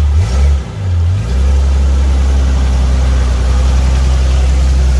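Jeep Cherokee XJ's engine running as it crawls through a muddy water hole; the revs dip and rise in the first second, then hold steady.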